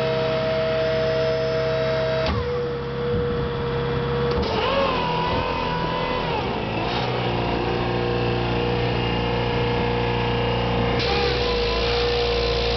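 Truck engine running a belt-driven hydraulic pump that powers a Dynaset piston air compressor and hydraulic welder-generator: a steady mechanical hum and whine. The tone shifts about two seconds in, again about four seconds in with a wavering whine, and once more near the end.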